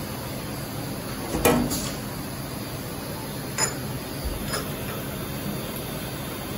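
Metallic clanks and clicks as a CAT 40 tool holder is handled at the spindle of a Haas VF-2SS vertical machining center, over the machine's steady running noise. A loud clank with a brief ring comes about a second and a half in, then sharper clicks around three and a half and four and a half seconds.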